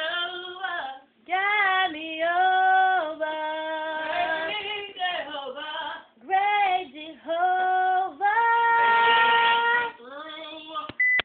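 A high female voice singing long held notes without clear words, sliding from one pitch to the next in phrases broken by short pauses. A short sharp click comes near the end.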